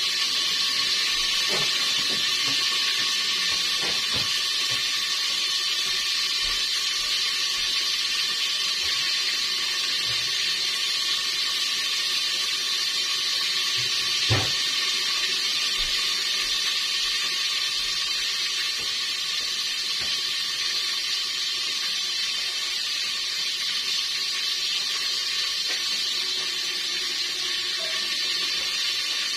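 Steady sizzling of food sautéing in oil in a pan, with one short knock about halfway through.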